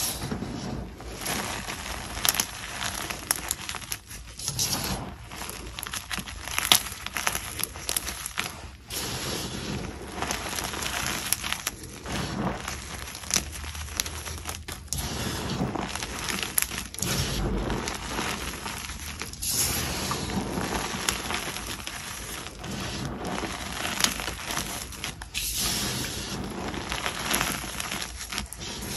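Crisp, crunchy snapping and powdery crumbling of dyed and plain gym chalk being bitten and chewed, in an irregular run of short crunches.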